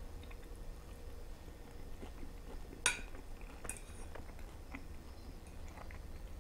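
Metal fork clinking and scraping against a ceramic plate while picking up food, in a few quiet light clicks with one sharper clink about three seconds in.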